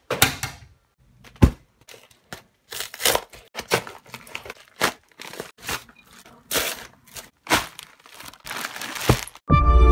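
A padded mail envelope drops onto a doormat with a thump, followed by a sharp knock. Then the bubble-lined envelope is torn open by hand and a plastic bag inside is handled, in short irregular bursts of tearing, crumpling and crinkling. Music starts just before the end.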